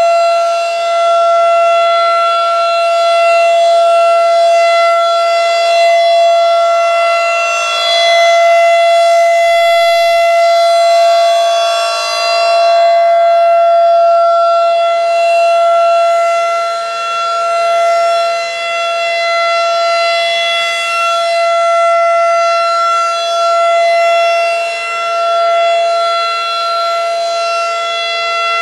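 Federal Signal 2001 rotating outdoor warning siren sounding a steady single tone for its routine test, not a real alert. Its loudness swells and fades every few seconds as the rotating horn turns toward and away.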